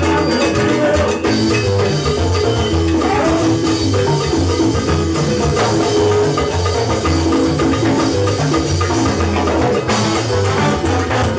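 Live salsa band playing: a walking upright-bass line under steady percussion, with held notes from the horns above.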